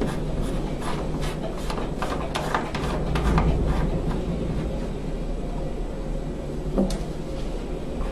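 Hands fitting the plastic air intake coupling into the sheet-metal furnace cabinet: a quick run of scrapes and clicks in the first few seconds, then a steady low hum with a single sharp click near the end.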